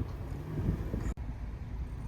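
Steady low rumble of a car in motion with wind buffeting the microphone; the sound drops out for a moment about a second in.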